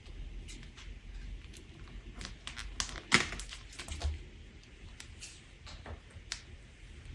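Crunch slime being squeezed and worked by hand: scattered crackles and pops, coming thickest a little past the middle, with one sharp loud pop about three seconds in.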